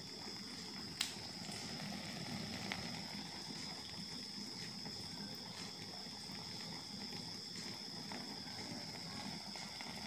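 Water running steadily into a twin-tub washing machine's foam-filled tub, a low even rush, under a cricket's constant high trill. A single sharp click about a second in.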